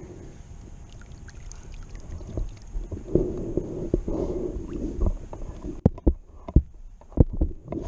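Handling noise in a plastic fishing kayak: a low rumble, then a run of sharp knocks and clicks from about six seconds in.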